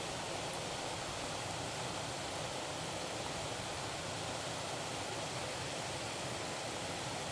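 Steady, even rushing noise with no tones or separate events.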